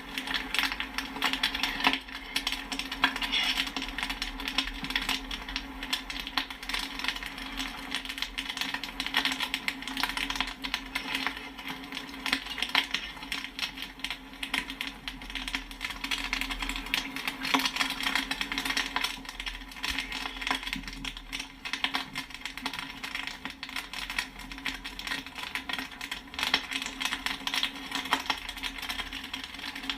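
Popcorn kernels popping in rapid, dense succession, many sharp pops and metallic pings a second with no let-up, over a steady low hum.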